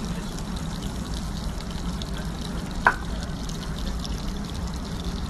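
Liquid poured from a small steel saucepan over a plate of sliced steak: a steady hiss, with one short clink about three seconds in.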